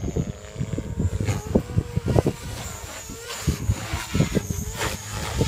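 JR Forza 450 electric RC helicopter with EDGE 353 mm main rotor blades in flight, its motor and gear whine and blade hum held at a steady pitch. Heavy wind buffeting on the microphone is the loudest sound, coming as irregular gusts.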